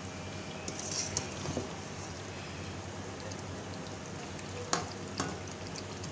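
Metal spatula stirring and spreading paste through curry gravy in an aluminium karahi, over a steady sizzle from the pan. There are a few light clicks, then two sharper knocks about half a second apart near the end, as the spatula strikes the pan.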